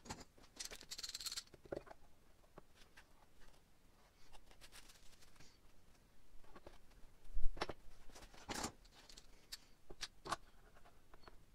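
A plywood panel being handled on a workbench and fastened with one-handed bar clamps: scattered clicks and scrapes of wood and clamp jaws, with one loud knock about seven and a half seconds in.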